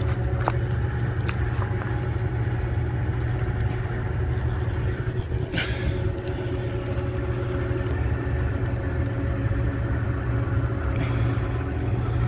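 A steady low rumble, with a brief scratchy noise about five and a half seconds in.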